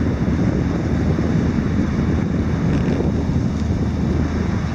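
Wind buffeting the microphone of a handheld compact camera, a heavy steady rumble, with the low steady drone of a passing inland motor cargo ship beneath it.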